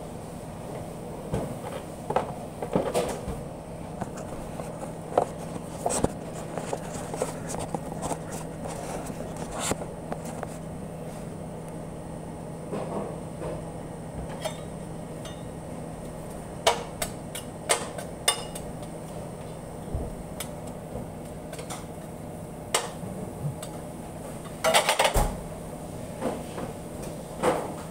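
Scattered metal clinks and knocks of kitchen trays and utensils over a steady hum of kitchen equipment, with a short burst of louder metal clatter about 25 seconds in.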